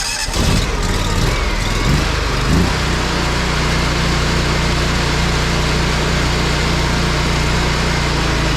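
Pressure washer's gasoline engine running just after starting. Its pitch shifts briefly in the first couple of seconds, then it settles into a steady run at about three-quarter speed.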